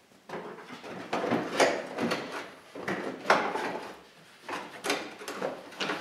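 Plastic front bumper cover of a Hyundai Elantra scraping and knocking against the car's front end as it is pushed and worked into place, in a run of irregular rubs and sharp knocks.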